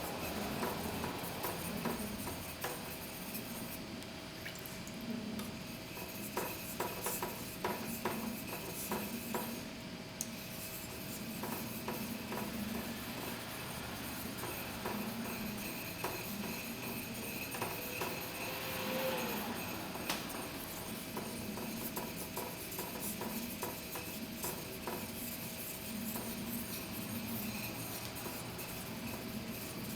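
Blue #2 carbon steel yanagiba blade rubbed back and forth on a Takashima Awasedo natural sharpening stone: a steady scraping rub in rhythmic strokes, about one a second.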